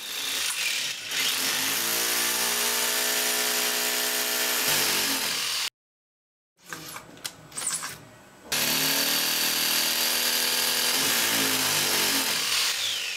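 Power drill running steadily for about five seconds, stopping, then a few handling clicks, then running again for about four and a half seconds.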